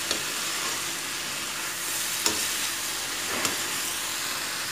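Snake gourd and tomato sabzi sizzling in a metal kadhai as it is stirred with a metal spatula, which scrapes and knocks against the pan a few times.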